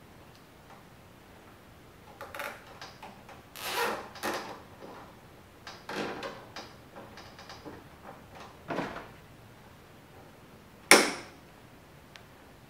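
A plastic zip tie being fastened around a bundle of lamp-cord wires: irregular scraping and rustling of plastic and wire, then one sharp snap near the end.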